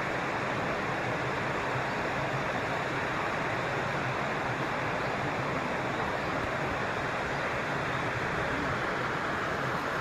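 Stream water running steadily, an even rush with no separate events.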